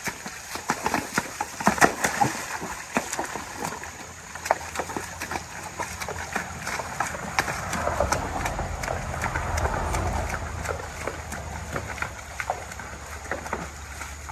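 A horse's hooves splashing and knocking on stones as it walks through a shallow, rocky creek, in uneven strikes. A low rumble swells and fades in the second half.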